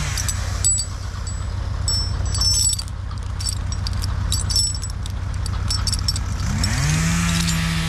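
A Stihl MS 261 chainsaw drops from high revs to a low idle, while a steel choker chain on a log clinks and jangles a few times. Near the end the saw revs back up to a steady high pitch.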